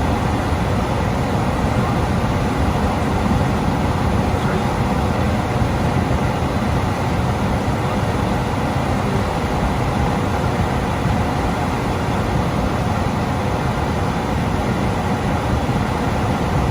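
Gas furnace's fan running, a steady even rush of air and motor noise with no change.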